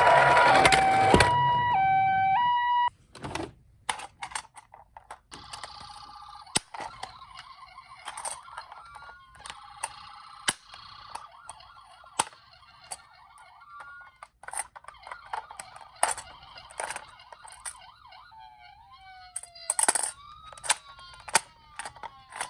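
A toy ambulance's electronic two-tone siren alternates between a high and a low pitch, then cuts off suddenly about three seconds in. Scattered plastic clicks and knocks follow, with fainter siren tones, including a rising-and-falling wail near the end.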